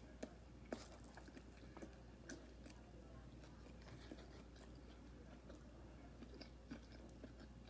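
Faint chewing of a mouthful of sub sandwich, with soft, scattered mouth clicks.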